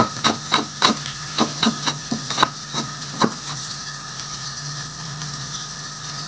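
Kitchen knife thinly slicing shallots on a wooden cutting board: quick, irregular knocks of the blade on the wood, about three a second, stopping a little over three seconds in.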